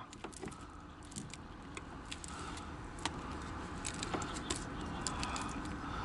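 Small metallic clicks and jingles, scattered and irregular, from a jointed frog lure's hooks and hardware being worked by hand out of a black bass's mouth.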